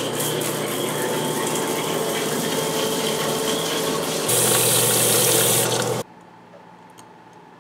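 Water running hard from a bathroom tap, shut off abruptly about six seconds in. The rush turns louder and brighter for a second or so just after four seconds.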